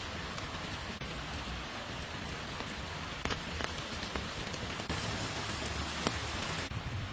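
Steady rain falling, with scattered sharp drops striking close by. It grows heavier for about two seconds near the end, then eases back.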